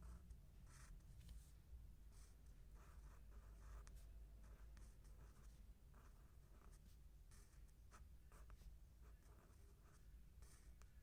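Faint handwriting: short, irregular scratching strokes of a writing tool on paper, over a steady low hum.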